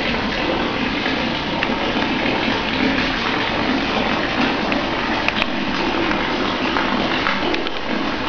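Steady rush of running water from a koi pond.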